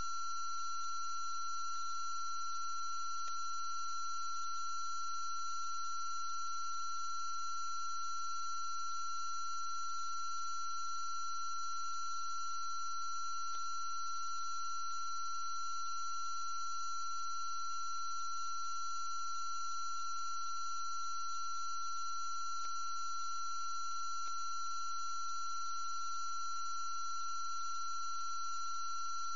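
A steady, unchanging electronic tone, with fainter higher tones above it and a faint low hum beneath.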